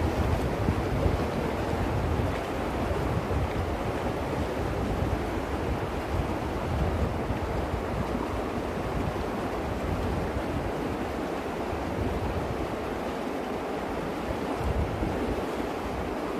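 The Virgin River rushing over rocks and cobbles in a narrow slot canyon, a steady flowing-water noise, with some low wind rumble on the microphone coming and going.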